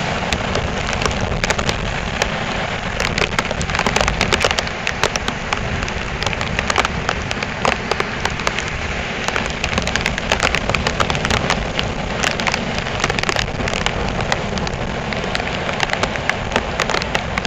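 Heavy hurricane surf breaking, with strong storm wind: a loud, steady rushing noise, peppered with frequent sharp crackles.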